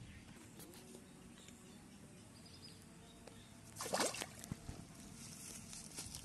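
A hooked fish thrashing at the surface of a pond, a short burst of splashing about four seconds in.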